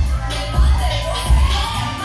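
K-pop dance track played loudly for a stage dance routine, with a heavy bass beat about every two-thirds of a second under a melody line.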